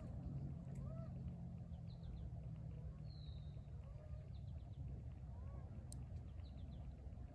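Faint, short whining calls of beaver kits, rising and falling and repeating about once a second, over a steady low rumble. A few high, falling whistles come in among them.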